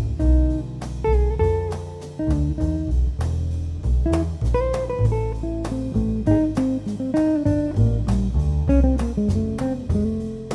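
Jazz trio music: a guitar plays a melody line over double bass and drums, with cymbal strokes keeping an even pulse.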